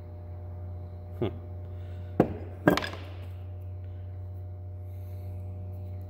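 A metal light-switch housing set down on a wooden workbench: a light knock, then two sharp knocks about half a second apart. A steady low hum runs underneath.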